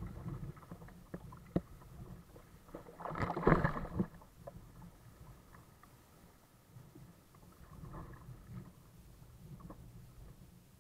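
Water splashing from a double-bladed kayak paddle and small surf against a sailing kayak, with a few sharp knocks early on and one loud rush of water lasting about a second, about three seconds in.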